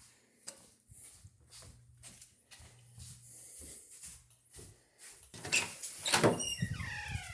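A string of light knocks and handling sounds, then a louder clatter about five seconds in, ending in a short falling squeak.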